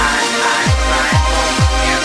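Electronic dance music: a deep kick drum that drops in pitch on each hit, about twice a second, under sustained synth tones.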